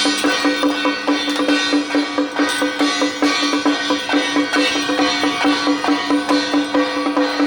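Temple-procession percussion music for a Jiajiang troupe: drums and other percussion beating a quick, steady rhythm over a sustained held note.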